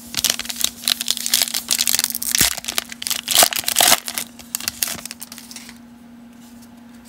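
Foil wrapper of a 2020 Panini Chronicles baseball card pack crinkling and crackling as the cards are slid out of it and handled. The crinkling stops about five and a half seconds in.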